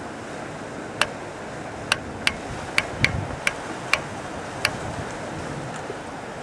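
About eight sharp clicks at uneven intervals, bunched in the first few seconds, over a steady background hiss: the controls of the radio gear being clicked while the CB transmitter's output is adjusted.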